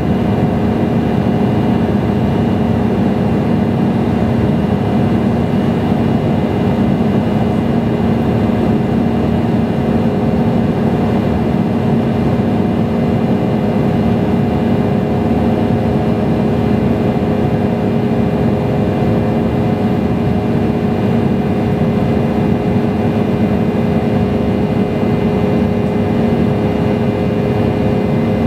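Steady cabin noise inside an Embraer E175 in flight: the rush of air and the hum of its GE CF34-8E turbofan engines, with several steady whining tones over it.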